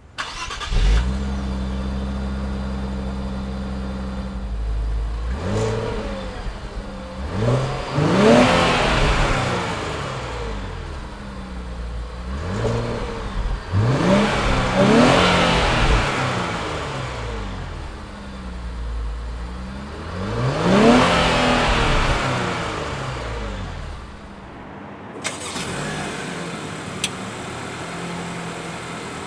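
2017 Infiniti Q60 3.0t's twin-turbo V6 starts up with a brief flare about a second in, settles to idle, and is then revved three times, each rev rising and falling back to idle. About four seconds before the end the sound cuts to a 2016 Acura TLX 2.4L four-cylinder idling, with a single click.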